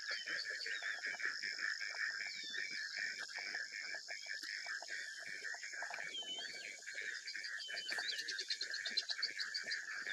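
A steady chorus of frogs and insects, a continuous pulsing trill, with short swooping chirps repeated over it and a quick run of high ticks near the end.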